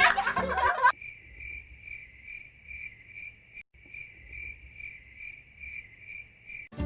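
Cricket chirping sound effect, evenly spaced chirps about two or three a second, cutting in suddenly after a brief bit of speech and cutting off just as suddenly; the stock "awkward silence" crickets cue.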